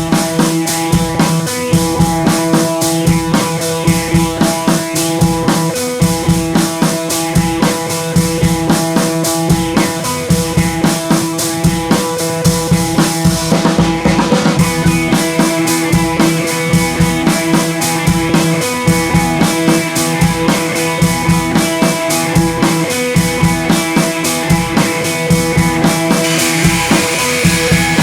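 Background music: an upbeat track with a driving drum-kit beat and sustained pitched notes.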